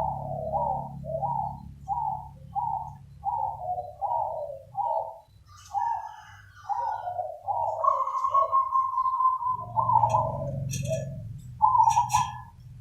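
Zebra dove cooing: a run of short, clipped coo notes, about two a second, then a looser phrase with one longer held note. Fainter high chirps of other small birds come in behind it.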